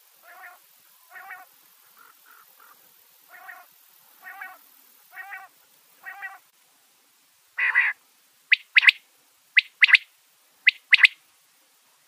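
Quail calling: a run of soft, short notes about one a second, then a single louder, rougher note, then three loud, sharp double notes about a second apart.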